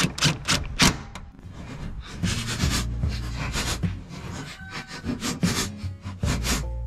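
DeWalt 20V Max cordless impact driver tightening the nuts on a new mower-deck spindle's small mounting studs. It starts with a few quick short bursts, then runs longer about two seconds in and again near the end.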